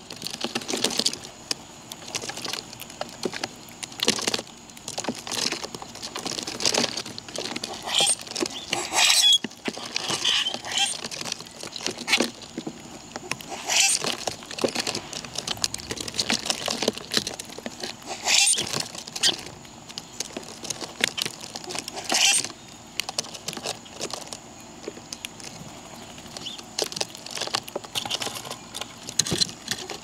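Birds feeding: a busy, irregular patter of small pecking and scratching taps, with a louder brief rustle every few seconds.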